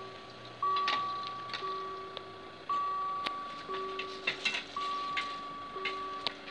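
Level crossing warning bell sounding while the crossing is closed: a two-tone ding-dong, high tone then low tone, each struck about once a second and ringing out, warning that the barriers are down for a train. A few faint clicks sound in between.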